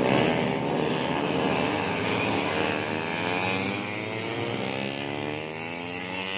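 Several 150cc four-stroke underbone racing motorcycles at high revs passing by together. Their engine notes overlap and slide in pitch as they go past, loudest at the start and easing off.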